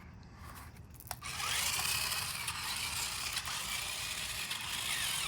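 A toy remote-control car's small electric motor whines as it starts driving about a second in, with steady, hissy running noise over the ground and the whine rising and falling.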